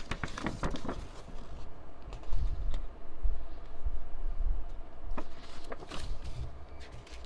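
Paper album inclusions, a folded poster among them, being handled and shuffled: irregular paper rustling and small clicks with soft low thumps, busiest in the middle.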